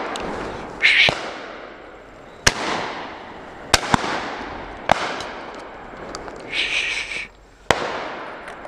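Shotgun shots during a driven pheasant drive: about six sharp reports, two of them close together about four seconds in, each trailing off in an echo through the wooded valley.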